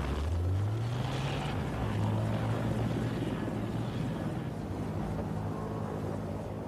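A heavy engine running, its low hum rising in pitch over the first second or so and then holding steady.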